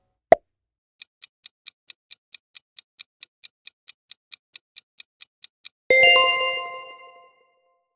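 Quiz sound effects: a short pop as an answer option appears, then a countdown timer ticking about five times a second for nearly five seconds. Then a bright bell-like chime of several tones rings out and fades over about a second and a half, signalling the correct answer.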